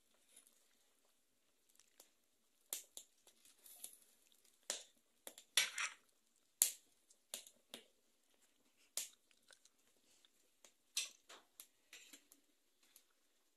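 Scattered clicks and knocks of a metal serving utensil against a cooking pot and a glazed clay cazuela as cooked chicken pieces are lifted out of the broth, with a short scrape about five and a half seconds in.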